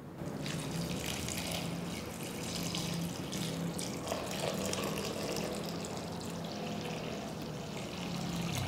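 A thin stream of water pouring and splashing steadily into a glass bowl of grated potato, filling it to rinse the shreds.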